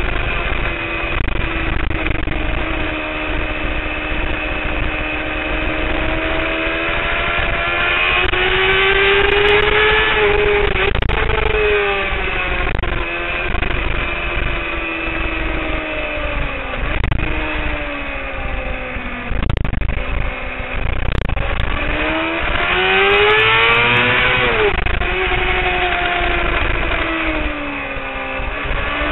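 Honda CBR600RR's inline-four engine at racing speed, its note rising and falling several times as the bike accelerates and slows through corners, with a steep climb and quick drop about three-quarters of the way through. Heavy wind rush on the tail-mounted microphone runs underneath.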